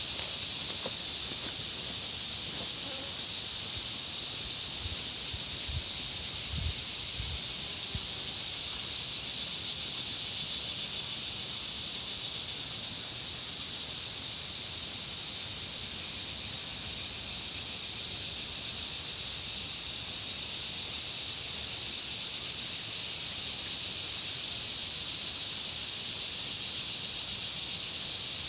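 Chorus of insects around a country pond: a steady high-pitched drone with a thin ringing tone on top. A still higher shimmer swells and fades every second or two.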